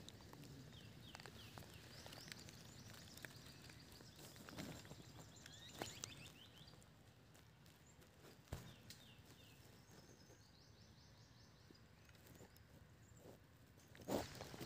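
Faint forest ambience: birds calling in short runs of quick, high, falling notes, several times over. Scattered crackles and knocks run through it, the loudest near the end.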